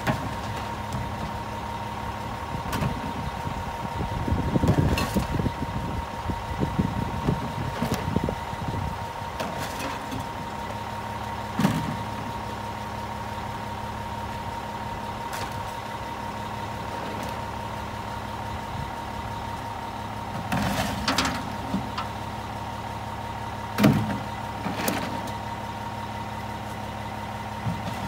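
Front-loading garbage truck's engine idling steadily, with a steady high whine over it. Recyclables are tipped into the steel carry can on its forks, so bottles, cans and tubs clatter and knock against the can, with a sharp knock about 12 seconds in and a loud bang about 24 seconds in.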